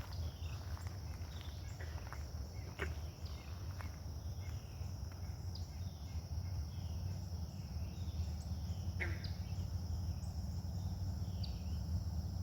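Woodland ambience with a steady high insect drone, a series of short curved calls repeating about once a second, and a few sharp knocks, the clearest about three seconds in and near nine seconds. This is the unidentified noise that, heard in the woods, seems to move from side to side and sounds like someone playing a drum.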